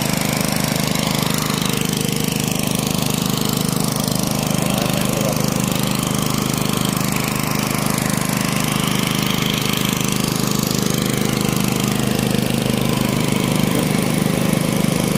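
Small engine-driven portable water pump running steadily, drawing floodwater out of a foundation pit through its suction hose.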